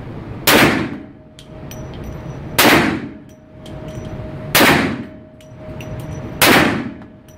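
Four pistol shots about two seconds apart, each sharp report ringing out in the echo of an indoor shooting range.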